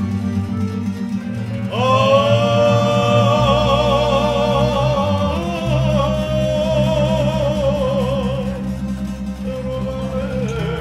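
Live folk music: a Guerrini piano accordion and a small strummed string instrument playing together, with two men singing long held notes with vibrato from about two seconds in.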